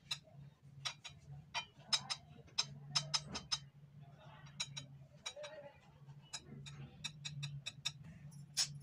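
Irregular sharp clicks and light taps of a metal spoon against a ceramic plate as ketchup is dabbed on, over a steady low hum.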